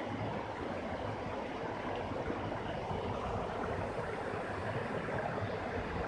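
Small waterfall cascading down rock ledges: a steady rush of falling and splashing water.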